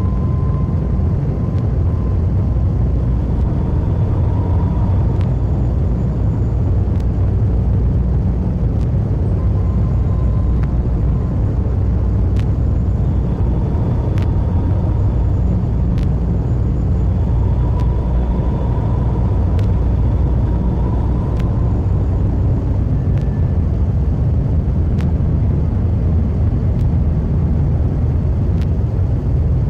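Power-electronics noise music: a dense, unbroken low rumble, with faint wavering tones drifting in and out above it and scattered sharp clicks.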